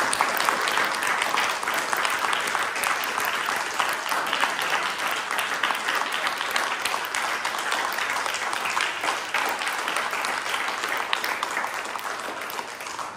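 Audience applauding: steady, dense clapping that eases slightly near the end.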